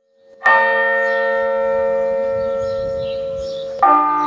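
A bell strikes about half a second in and rings on, fading slowly. About three seconds later a second bell with a different note strikes and rings on.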